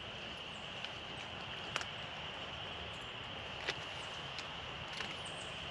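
Quiet outdoor background: a steady hiss with a faint, steady high-pitched tone, broken by a few scattered sharp ticks.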